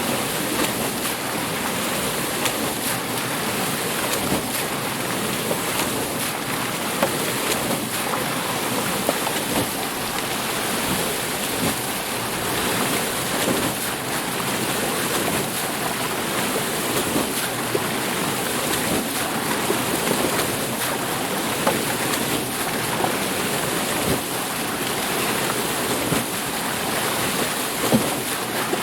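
Water mill: water rushing and splashing at the wheel, a steady dense rush broken by frequent small irregular splashes.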